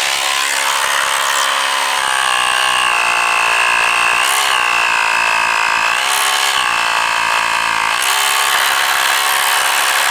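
Miniature 12-volt Monkey Grip tire air compressor running: a steady mechanical hum with a slight waver in pitch a few times.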